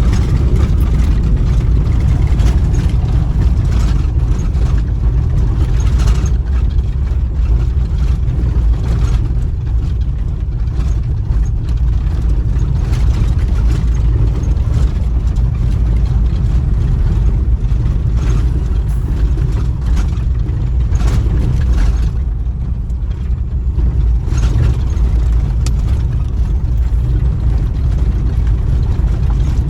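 Steady low rumble of a vehicle's engine and road noise while driving, with a few brief knocks from jolts on the road.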